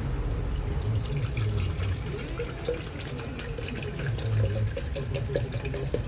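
Tap water running into a container as it is filled.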